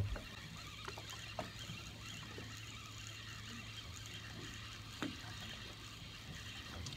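Fishing boat's engine idling with a steady low hum, with faint water noise and a light knock about five seconds in.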